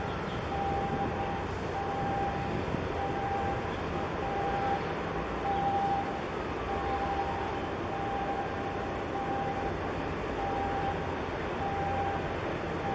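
Steady noise of a large container ship passing close by, with a high electronic beep repeating about once a second throughout.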